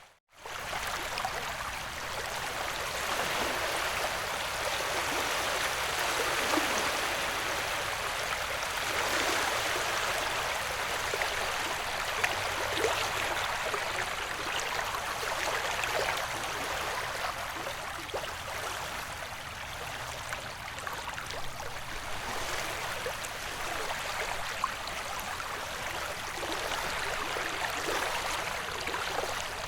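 Ocean wave ambience: a steady wash of surf with slow, gentle swells and a fine fizzing crackle. It breaks off for a split second right at the start, then resumes.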